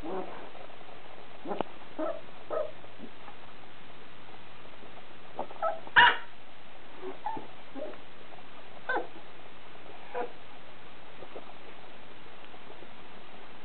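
Corgi puppy barking at a dangling printer cable in short yips at uneven intervals, about a dozen, with the loudest bark about six seconds in.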